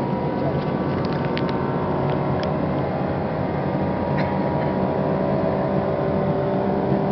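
Jet airliner's engines heard inside the cabin, a steady drone with several even hum tones as the plane climbs after takeoff. A few faint clicks come through about one to two seconds in and again a little past four seconds.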